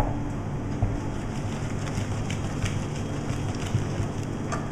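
Wooden spoon stirring and beating butter and grated parmesan into thick risotto in an aluminium saucepan: the mantecatura, the final creaming of the risotto. Over a steady crackly hiss and a low hum.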